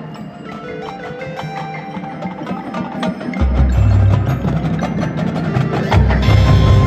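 Marching band playing its field show: pitched mallet percussion notes in quick succession, joined about halfway through by heavy low bass hits as the music grows louder.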